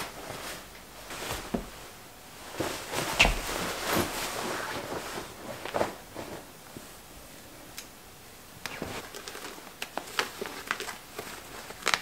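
Clothing rustling in irregular bursts as a coat is taken off, with scattered soft knocks and small clicks of handling.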